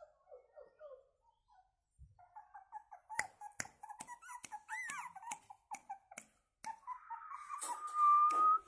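Pomeranian puppies whimpering in short high squeaks, with sharp clicks among them, then one long, slightly rising whine near the end that is the loudest sound.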